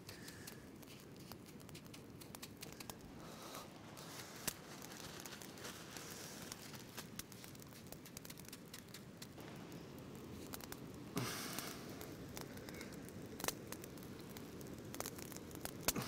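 Faint crackling of wet coarse rock-salt paste on a fire-heated stone, with scattered small pops and clicks from the salt and the fire beneath it, and a brief louder scrape or rustle about eleven seconds in.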